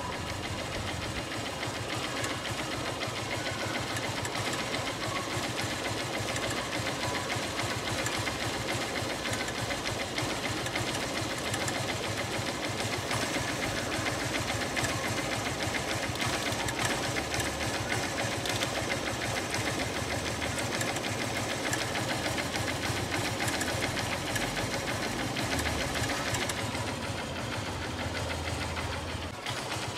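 Honda Unicorn's single-cylinder motorcycle engine running with a rapid, steady ticking from inside the engine, a tick that came on suddenly and whose cause the owner does not know.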